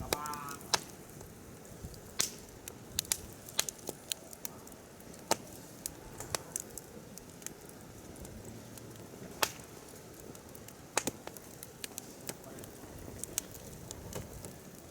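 Firewood burning in a mesh campfire stand: irregular sharp crackles and pops over the steady hiss of the flames.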